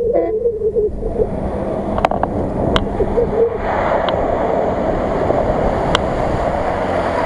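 Off-road 4x4's engine revving as it ploughs through a flooded, muddy field, tyres churning and splashing water and mud. The splashing and engine grow louder from about halfway through as it approaches, with a few sharp clicks along the way.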